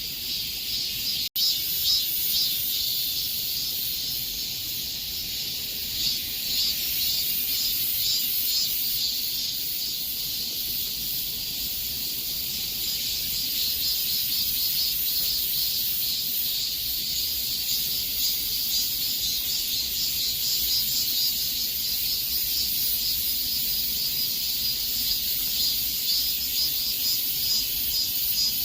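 Chorus of cicadas droning in summer heat: a dense, continuous high buzz with a fast pulsing texture, strongest in the first several seconds. There is a split-second gap about a second in.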